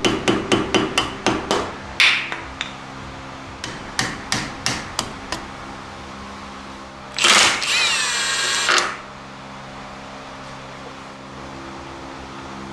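Hand tools working at a truck's front wheel hub while the dust cap comes off the spindle: quick sharp metal taps, about five a second at first and then more scattered. Near the end, a loud metal-on-metal squeal with ringing tones lasts about a second and a half.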